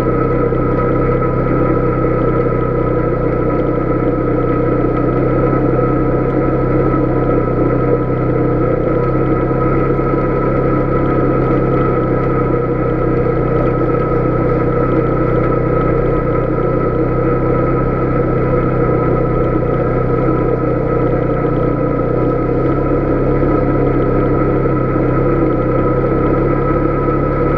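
Polaris Sportsman 570 Touring ATV's single-cylinder engine running at a steady speed while the quad cruises along a dirt road, a constant drone with no change in revs.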